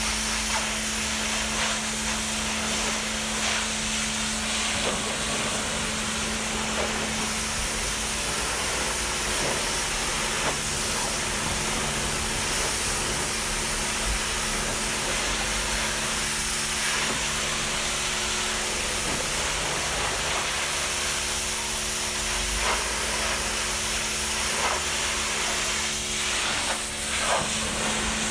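Car-detailing equipment running: a steady hiss of spray or blown air over a constant motor hum, with a few faint clicks near the end.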